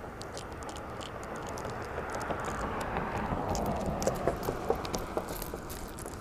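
Close handling noise: rustling and scraping with scattered light clicks, growing louder toward the middle, as hands work fishing tackle near the microphone.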